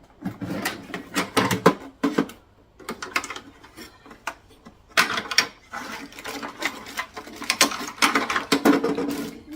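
Hard plastic parts of a dehumidifier being handled, with rapid, irregular clicking and clattering. It comes in two busy spells, one at the start and one from about halfway on.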